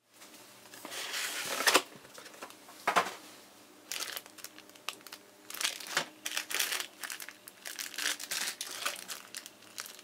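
Clear plastic parts bags of a model kit crinkling and rustling as they are handled and lifted out of a cardboard box, in irregular short bursts.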